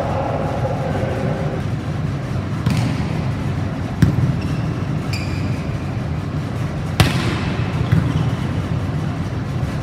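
Volleyball being struck in a rally: sharp smacks of arms and hands on the ball, the loudest about four and seven seconds in, echoing in a large gymnasium, with a brief squeak of shoes on the court floor between them.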